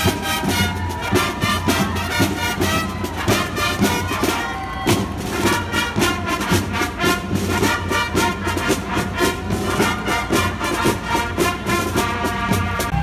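Marching band playing brass music over a steady drum beat.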